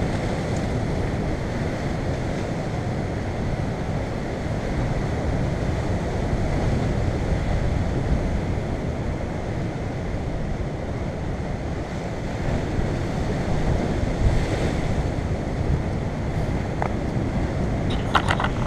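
Sea surf breaking on rocks in a steady wash, with wind buffeting the microphone. Near the end a few short knocks as the camera is handled.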